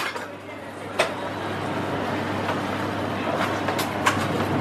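Steady background din of a busy food hall, broken by a few sharp clicks, the loudest about a second in.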